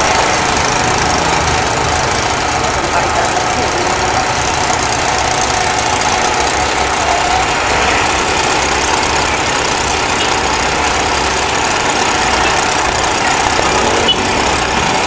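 A fire truck's engine running steadily to drive the pump that feeds a disinfectant spray hose, with a constant hiss over it.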